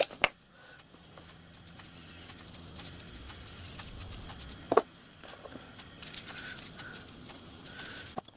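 Small bronze discs and a hand tool being handled on a wooden workbench: light scattered clicks and scrapes, with one sharper knock a little over halfway through.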